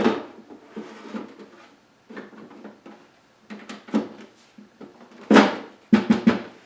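Plastic water bucket of a dehumidifier being slid back into the unit: a series of hollow plastic knocks and clunks, the loudest about five seconds in and a quick cluster just after.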